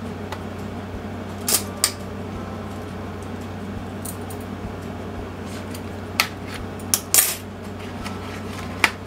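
Light clicks and taps of a boxed makeup palette and its packaging being handled, about seven sharp ones spread through, over a steady low hum.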